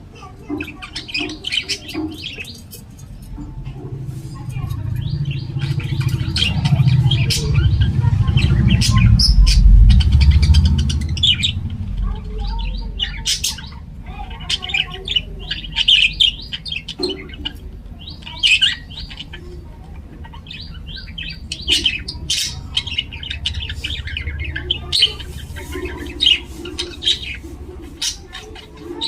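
Budgerigars chirping and chattering in quick short calls throughout. A low rumble swells in the first half and fades away.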